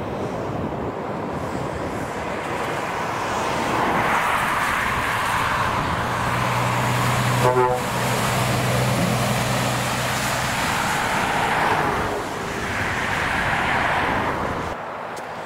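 Motorway traffic going past, mostly trucks: a rushing tyre-and-wind noise that swells as vehicles pass, with a heavy truck engine's low drone through the middle and a brief sharp blip near the midpoint.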